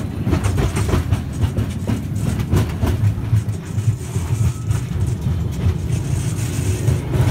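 Open-sided tourist train carriage in motion: a steady low rumble from the running gear and motor, with frequent rattles and knocks from the carriage.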